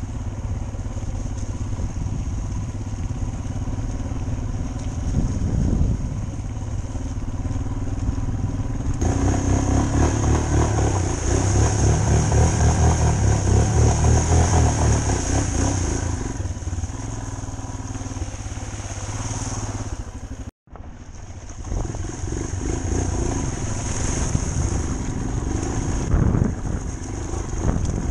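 Motorcycle engine running under way, heard from a helmet-mounted camera. From about 9 s to 16 s it grows louder and rougher, mixed with water splashing as the bike fords a shallow river. The sound drops out abruptly for an instant about two-thirds in, then the engine runs on.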